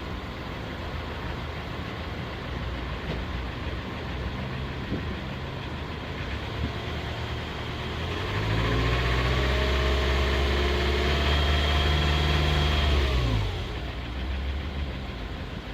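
Jaguar 2.0 diesel engine idling, then revved about eight seconds in, held at higher revs for about five seconds and let drop back to idle. The owner's complaint about this engine is a rough idle with white smoke, worst when cold.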